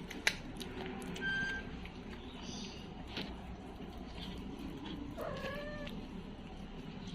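A kitten gives one short meow about five seconds in, amid a few faint clicks.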